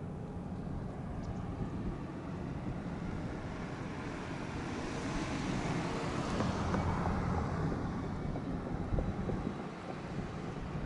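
Wind buffeting the microphone out on the water: a steady low rumble, with a broad hissing swell that builds toward the middle and then eases off.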